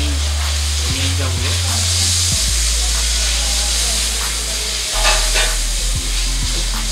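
Chicken pieces sizzling in hot oil in a stainless steel pot while a plastic spatula stirs and scrapes them around, with a few scrapes against the pot. A steady low electrical hum runs underneath.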